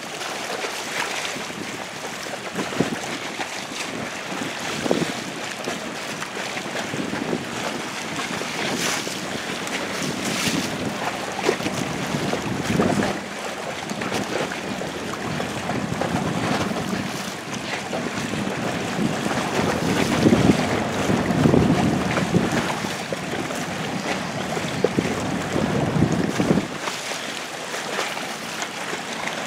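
Wind buffeting the microphone over waves splashing around a boat at sea, swelling louder about two-thirds through, with a few sharp slaps of water.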